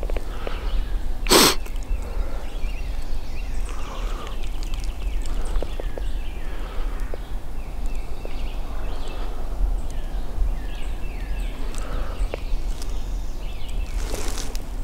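Songbirds calling faintly in the woods over a steady low rumble. One short, loud burst of noise comes about a second and a half in.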